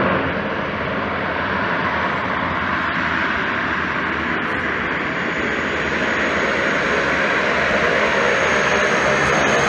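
Twin-engine turboprop plane's engines and propellers running at high power as it rolls along the runway toward the listener, growing slightly louder, with a thin high whine joining about halfway through.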